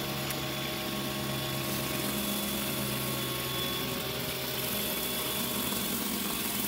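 Pressure washer running with a Sun Joe surface cleaner attachment scrubbing concrete: a steady motor hum under an even hiss of water spraying onto the slab.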